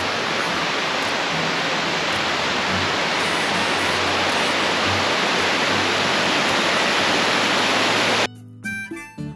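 Loud, steady rush of fast-flowing mountain water, with soft background music faintly beneath it. About eight seconds in the water cuts off abruptly, leaving only the music, quieter, with plucked and held notes.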